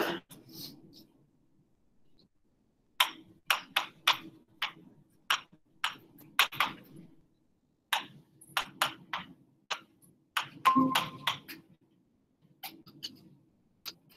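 Marker writing on a board: a quick run of short taps and strokes, several a second, starting about three seconds in and stopping near eleven seconds, over a faint low hum.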